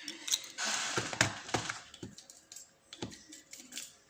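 Small metal padlock parts being handled during disassembly: a run of sharp clicks and light clinks, with a brief scrape about a second in.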